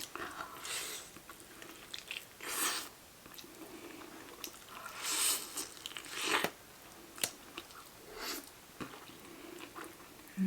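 Close-miked biting and chewing of crispy fried chicken wings, with irregular crunches every second or so.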